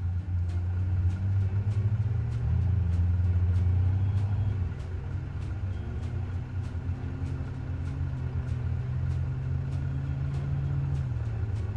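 Car engine and road noise from inside a moving car: a steady low drone that rises in pitch a couple of seconds in and eases off about halfway through as the engine speeds up and slows. Faint ticking about twice a second runs underneath.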